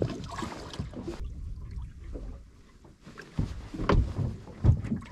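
Irregular knocks and bumps aboard a small boat over a haze of wind and water noise, with no engine running. It goes quieter for a couple of seconds about a second in, and the heaviest thumps come near the end.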